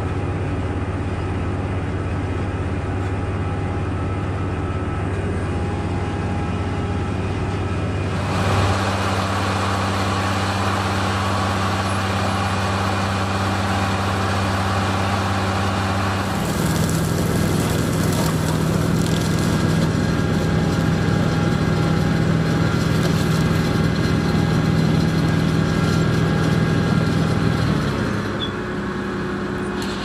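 Dewulf Potato4CE self-propelled potato harvester working in the field: a steady engine hum with a noisy rattle and hiss of soil and haulm going through the machine. The hum changes pitch about a third of the way in and again about halfway, and drops a little near the end.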